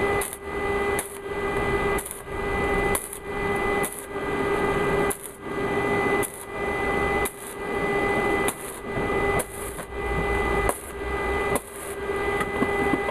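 Metal being worked by hand in steady back-and-forth strokes, about one a second. Each stroke is a rasping scrape over a steady ringing tone and stops sharply.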